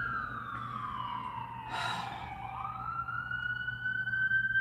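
Ambulance siren in a slow wail, its pitch sliding down for about two seconds and then rising again, heard from inside a car. A brief noisy blast about two seconds in, at the low point of the wail.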